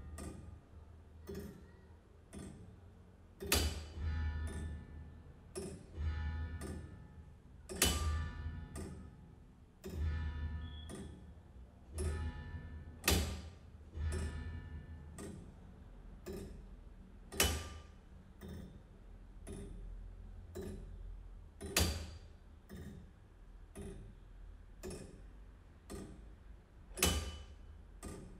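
Sharp mechanical clicks and knocks at uneven spacing, some ringing briefly with metallic tones, with a louder strike about every four to five seconds over a low rumble: a percussive ticking and chiming sound collage.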